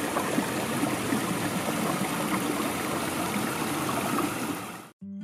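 Small stream splashing and rushing over a rocky cascade, a steady water noise that fades and stops just before the end, where acoustic guitar music begins.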